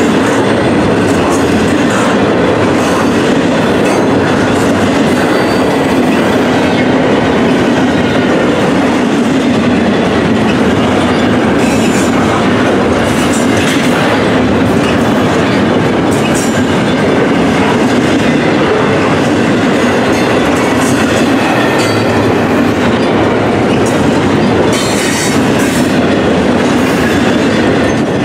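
Double-stack intermodal well cars of a freight train rolling past: a loud, steady rumble of steel wheels on rail, with sharp clicks now and then and faint high wheel squeal.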